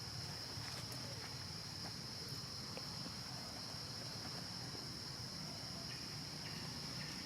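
Insects singing in a steady, high-pitched chorus, over a faint low hum.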